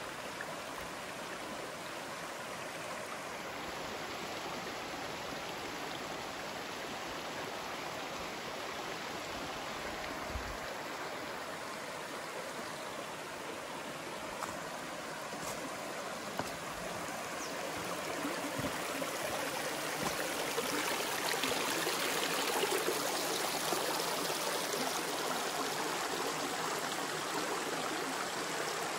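Steady rush of water from a waterfall and creek, growing somewhat louder in the last ten seconds or so.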